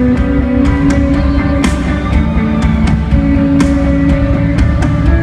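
Rock band playing live through an instrumental passage between sung lines: held guitar notes over bass and drums, with cymbal crashes about every two seconds.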